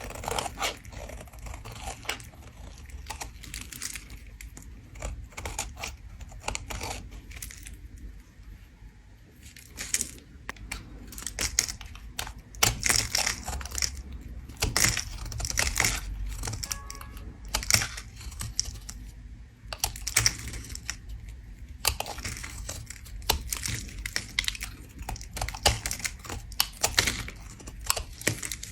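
A bar of soap being scraped with a tool: a run of crisp, crackly scraping strokes in quick, irregular succession, with a couple of short pauses.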